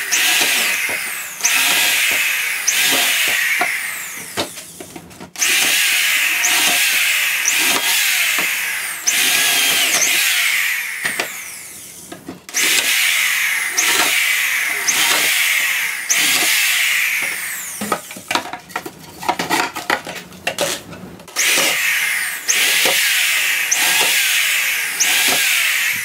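Corded power drill boring a run of holes through a wooden board, one hole about every second and a half: each starts suddenly and loud, its pitch sliding down as the bit bites into the wood. A few brief breaks interrupt the run.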